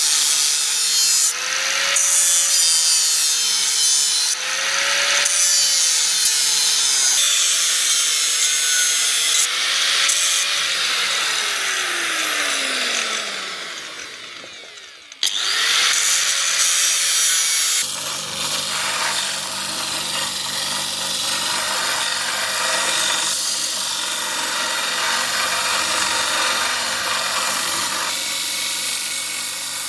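Power grinder grinding a steel knife blade, with a gritty hiss over a motor whine whose pitch dips and recovers as the work is pressed. About halfway through the motor winds down and the sound fades, then it starts again suddenly and settles into a steadier grind with a low hum.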